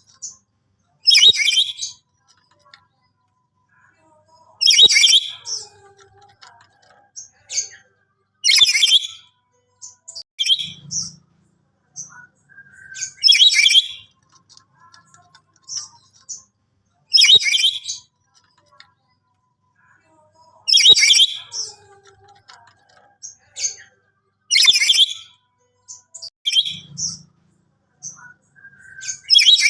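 Black-capped lory giving loud, harsh screeching calls in bouts about every four seconds, with softer chirps in between.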